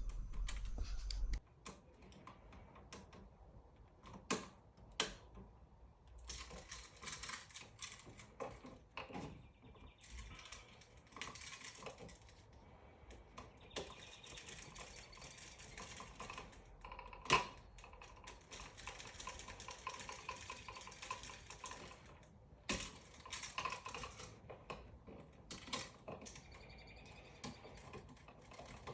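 Faint scattered clicks and scraping of hand tools and wires on an electrical outlet as its terminal screws are wired and tightened, with a sharper click about halfway through.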